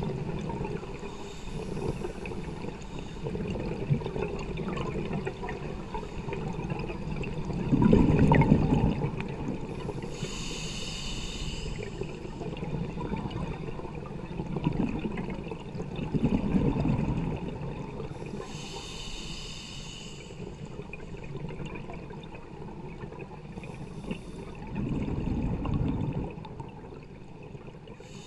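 Scuba diver breathing through a regulator underwater: a hiss on each inhale and a bubbling rumble on each exhale, about three breaths some eight seconds apart.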